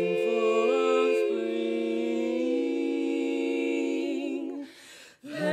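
Women's barbershop quartet singing a cappella, holding a long four-part chord that shifts pitch a couple of times and cuts off about four and a half seconds in. After a brief breath, the next phrase starts near the end.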